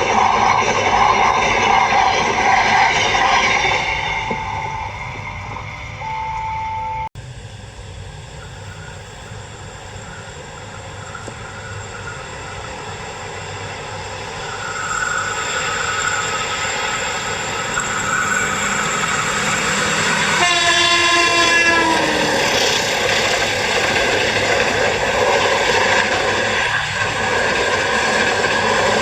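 KAI CC 201 diesel-electric locomotive sounding its horn once, for about a second and a half, past the middle. Train running noise and rail clatter continue throughout, loudest near the start and again in the last few seconds.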